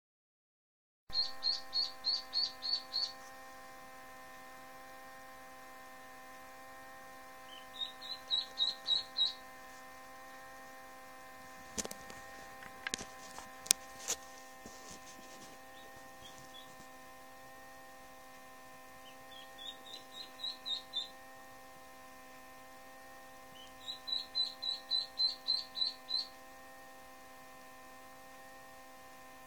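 Indian Runner/Khaki Campbell cross duckling peeping in four bouts of rapid, high-pitched peeps, over a steady hum. A few sharp clicks come about halfway through.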